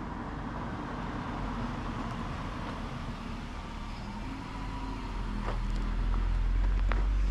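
Wind rumbling on the microphone, growing stronger after about five seconds.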